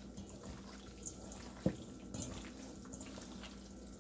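Hands squeezing and turning cubed beef and fat in an oily spice marinade in a stainless steel bowl: irregular wet squelching, with one sharp click about a second and a half in.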